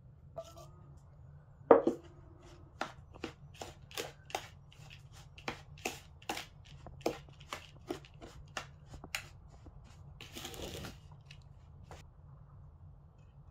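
A metal spoon clinking against a ceramic bowl while stirring ground walnuts with melted butter: one loud ringing clink about two seconds in, then a run of quick taps, about two or three a second, and a short scrape near the end.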